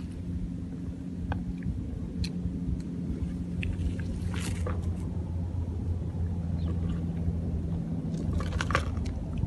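A steady low engine hum runs underneath, with a few short scrapes of a plastic toy shovel digging in dry, gritty dirt about halfway through and again near the end.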